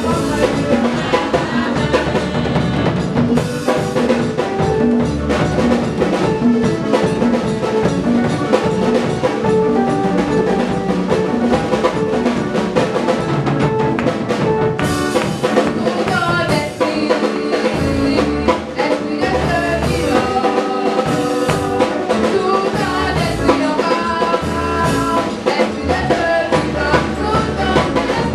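Live gospel praise song: women's voices singing into microphones over a drum kit playing a steady beat with band accompaniment.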